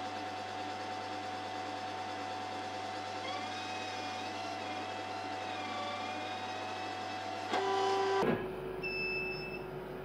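CO2 laser cutter running a cut through acrylic: a steady hiss and hum from the machine and its air assist. A whine wavers up and down in pitch partway through as the head follows the curves. It gets briefly louder just before eight seconds, and a short high beep sounds near the end.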